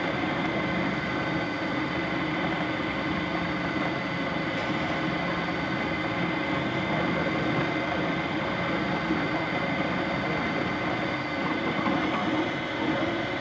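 3D printer running mid-print: a steady mechanical whirr with a constant high whine over it.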